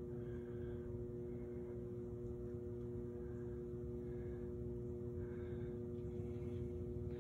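Microwave-oven transformer of a Lichtenberg wood burner, energized and humming steadily at mains frequency. No sizzling or arcing is heard from the wet wood: the burn has not taken off.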